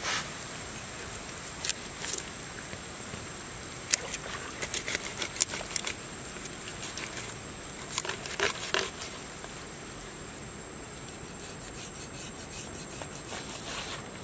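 Large cleaver-style knife cutting and scraping along a salmon's scaled skin and flesh, with scattered clicks and scrapes as the blade works, in two busier spells a third of the way in and just past the middle. A steady high-pitched whine runs underneath.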